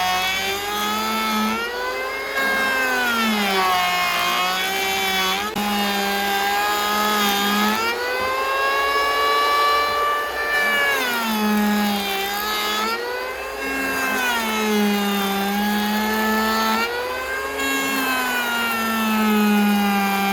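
Small engine running hard under load, its pitch sagging and recovering every few seconds, typical of a saw's engine labouring in a cut and then picking up speed again.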